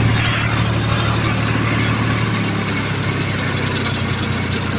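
Tractor engine running steadily, its note shifting slightly a little over two seconds in.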